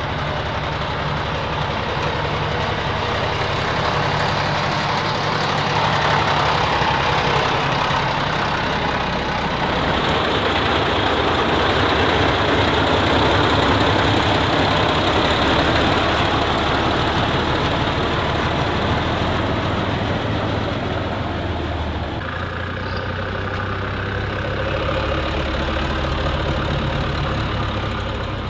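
Heavy old truck's diesel engine running under load, growing louder to a peak about halfway through, then easing back to a lower, steadier run near the end.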